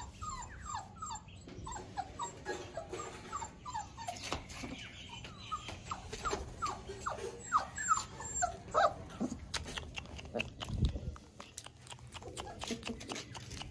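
Labrador puppy whimpering in short, high cries that fall in pitch, about three a second. In the second half there are scattered clicks and a low thump about eleven seconds in.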